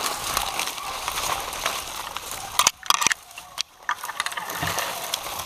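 Continuous rustling and crunching with many sharp clicks and knocks, as of someone moving on foot through dry brush. A cluster of louder clicks comes about two and a half seconds in.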